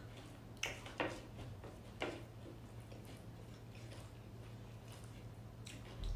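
Eating by hand from a plate: a few faint clicks and taps, about 0.6, 1 and 2 seconds in and again near the end, over a low steady hum.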